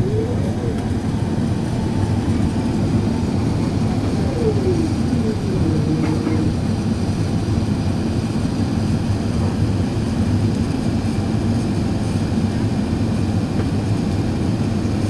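Steady low cabin roar inside an Airbus A380 descending on final approach, from its engines and the air rushing past the fuselage. A few faint tones slide up and down in pitch about four to six seconds in.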